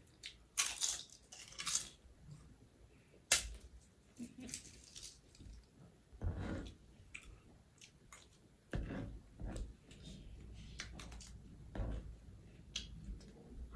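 Chewing and crunching of a crisp pani puri shell and chatpate, with a few sharp crunches in the first seconds. Softer handling knocks follow, and a spoon scrapes the tray near the end.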